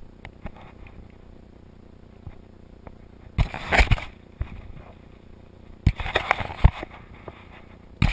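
Camera handling noise: fingers rubbing and bumping on the camera and its microphone, in two rough, crackly bursts of under a second each and a short one at the end.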